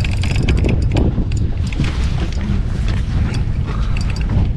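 Heavy wind buffeting the microphone on a small fishing boat at sea, with water around the hull and scattered light clicks.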